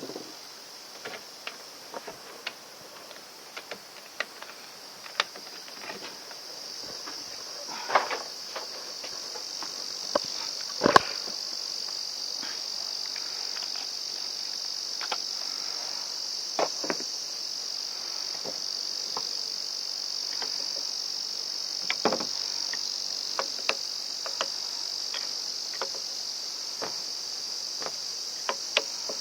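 A steady, high-pitched chorus of insects, with scattered clicks and knocks of parts and tools being handled as the brush cutter is put back together; the loudest knocks come about 8, 11 and 22 seconds in.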